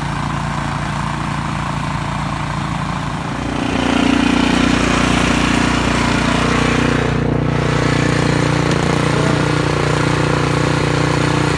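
A motor running steadily, getting louder and stronger about three and a half seconds in.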